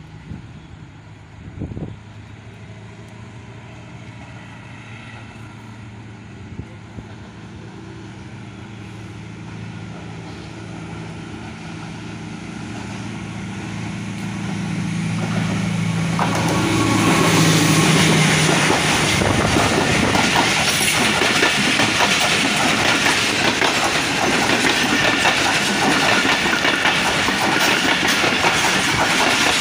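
ZCU-20 diesel-electric locomotive approaching, its engine hum growing steadily louder until it passes about halfway through. Passenger coaches then roll past loudly with a steady clickety-clack of wheels over the rail joints.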